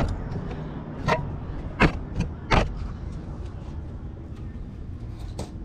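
Hand tools knocking on the metal of an engine as an oil pump bolt is taken out: three sharp clanks spaced under a second apart, then only a steady low background hum.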